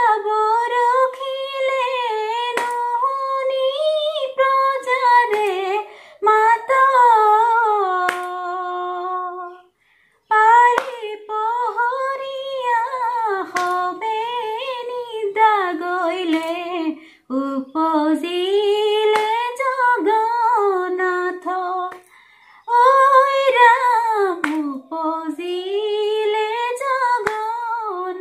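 A woman singing a Dihanam, an Assamese devotional song, unaccompanied, in long sliding, wavering phrases separated by short pauses.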